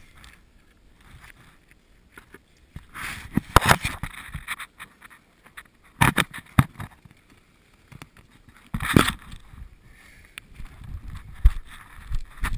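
Irregular scraping, knocking and rustling of a person crawling through a narrow rock passage, with clothing and the handheld camera rubbing and bumping against stone. The loudest bursts come about three, six and nine seconds in.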